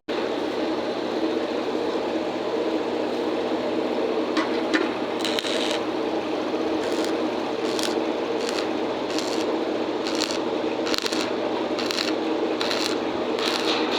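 Electric welding arc crackling and hissing steadily. From about four seconds in, short louder bursts of higher hiss come roughly once a second.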